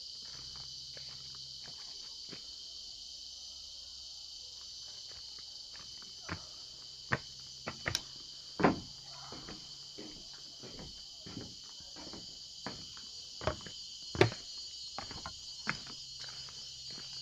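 Steady high-pitched chorus of tropical forest insects, with irregular sharp clicks and snaps over it, the loudest about halfway through and again about three-quarters through.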